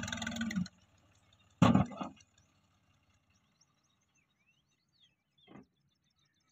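Tractor diesel engine running, cutting off abruptly under a second in, followed by a single loud thump and then faint bird chirps over a quiet background.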